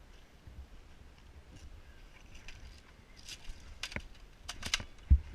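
Airsoft guns firing, heard as scattered sharp snaps with a quick run of several shots near the end. A loud low bump on the microphone comes just before the end.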